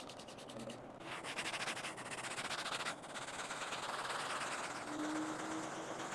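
Scrubbing and rubbing noises of hands-on car cleaning, a fine rapid scratching texture broken into short clips with abrupt changes. A brief steady hum sounds about five seconds in.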